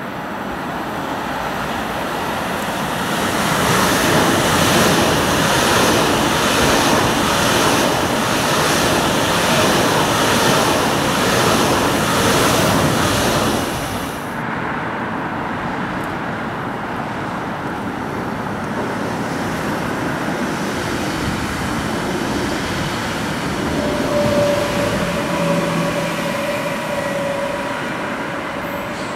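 Two coupled ICE T high-speed electric multiple units (DB class 415) passing at speed, with loud rushing wheel-on-rail and air noise that builds and then stops abruptly about halfway through. After that comes quieter traffic and rail noise, then a double-deck regional train approaching with a steady whine in the last few seconds.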